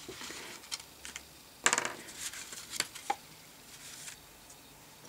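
Handmade greeting cards being handled and laid on the table: a few short rustles and light taps of card, the strongest about two seconds in.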